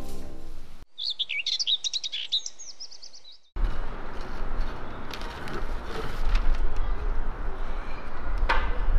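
Small birds chirping rapidly for about two and a half seconds, in high, quick rising and falling notes that stop abruptly. They give way to a steady background noise with a low rumble.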